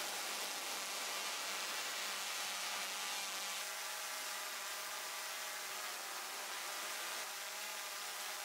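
Small quadcopter drone hovering, its propellers and motors giving a steady buzz whose pitch wavers slightly.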